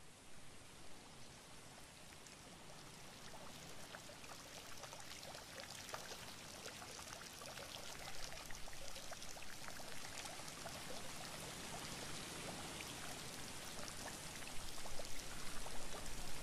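Splashing, trickling water, faint at first and slowly growing louder.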